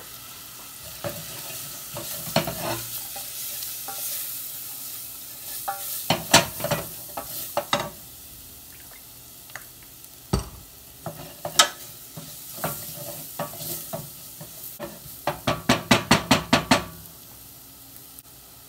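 Onions and paprika sizzling in oil in a stainless steel saucepan while a wooden spoon stirs them, knocking and scraping against the pan in quick runs about six seconds in and again near the end. A single dull thud about ten seconds in.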